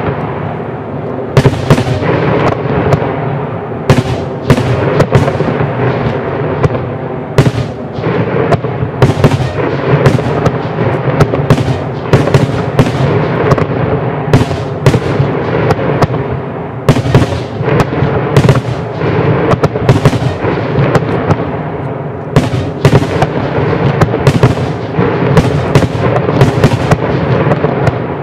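Starmine fireworks barrage of underwater set pieces bursting on a lake surface: dense, overlapping bangs, several a second, over a continuous rumble with no let-up.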